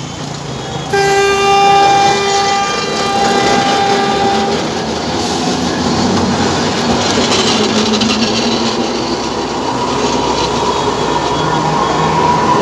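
Alexandria tram cars running past the platform: a horn sounds about a second in and holds, in a few pulses, for about four seconds, then the rumble and rattle of the cars on the rails, with a thin high steady tone coming in near the end.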